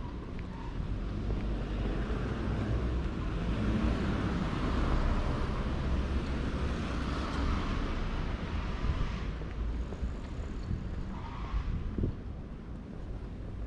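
A car passing by on the street, its tyre and engine noise swelling to a peak about halfway through and fading away by about nine seconds in, over a steady low rumble of wind on the microphone.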